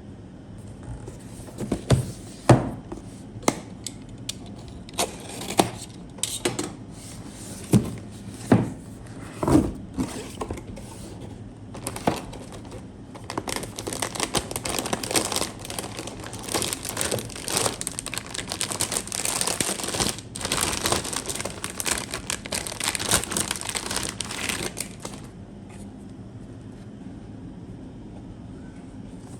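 Hands handling PC-part packaging: scattered knocks and taps for the first twelve seconds or so, then a long stretch of plastic or paper crinkling and tearing that stops about 25 seconds in.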